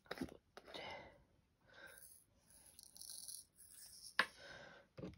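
A few faint taps of a diamond painting drill pen on the canvas, one near the start and one about four seconds in, with soft hissing noise in between.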